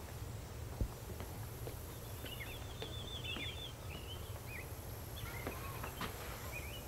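Small birds chirping in short, quick, curling calls, in two bursts, over a steady low outdoor rumble, with a few faint footsteps on a paved path.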